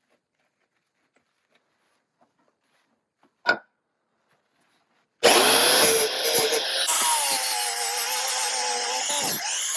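Near silence with one short sharp click, then a corded Milwaukee 4.5-inch angle grinder starts abruptly a little past halfway and runs loud against the steel around a cracked semi truck kingpin, cleaning out the crack before welding. Its pitch wavers as the load changes.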